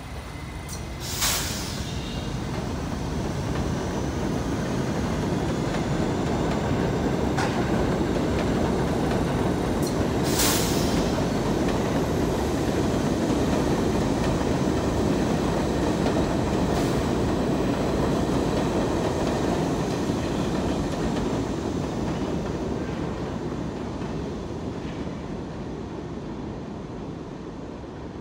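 R68A New York City subway train running past on the elevated steel track: a steady rumble and rattle of wheels on rails that builds to its loudest about halfway through and fades as the train leaves. Sharp metallic clacks come about a second in and again about ten seconds in.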